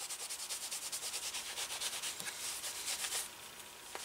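Cloth buffing a black leather holster piece: quick, even back-and-forth rubbing strokes that ease off about three seconds in. The leather has been dyed and treated with a wax-bearing conditioner, and the friction is buffing it to a shine.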